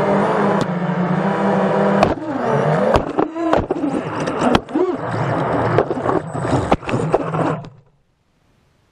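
FPV quadcopter's electric motors buzzing, their pitch dipping and rising as the drone tumbles through trees, with sharp knocks of the props and frame striking branches and the ground. The sound stops abruptly about eight seconds in, as the crashed drone's motors cut.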